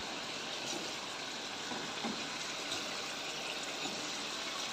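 Mutton and whole tomatoes frying in oil in a pressure cooker pot, a steady even sizzle.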